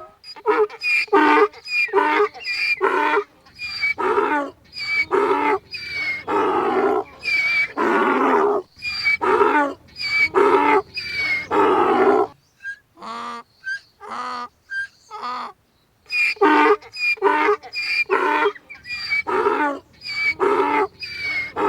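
Donkey braying: a long run of loud hee-haw calls in quick alternation. A fainter, sparser stretch comes about halfway through, then the loud braying starts again.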